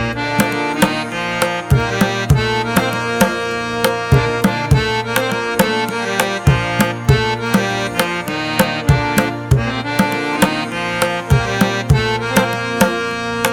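Background music: sustained melodic instruments over a steady, quick drum beat.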